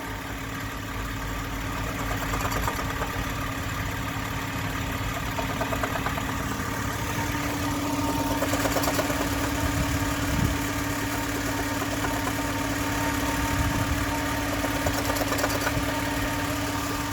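Car engine idling under the hood, with a periodic knocking from the engine bay that the owner suspects comes from a bearing. A steady hum joins about seven seconds in.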